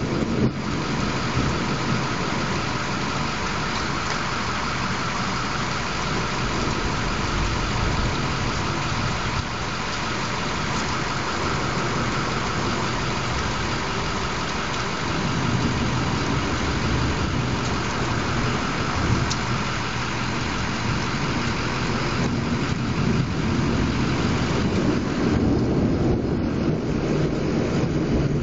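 Steady hiss of heavy rain from a summer thunderstorm, with low rumbling that swells about halfway through and again near the end.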